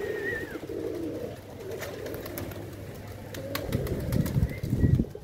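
Pigeons cooing low, with scattered small clicks and some louder low thumps in the second half.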